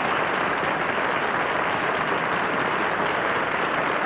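Studio audience applauding: a steady wash of many hands clapping.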